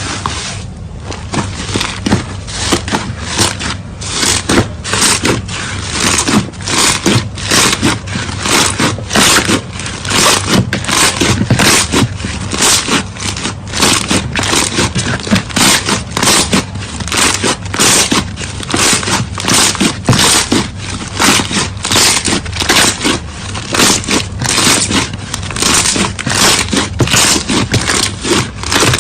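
Slime being worked by hand, giving quick, repeated crunchy, scraping squelches, about two to three a second.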